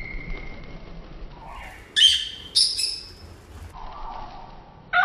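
Pet budgerigars and lovebirds calling: a whistled note that fades out in the first second, then two sharp, shrill squawks about two and two and a half seconds in.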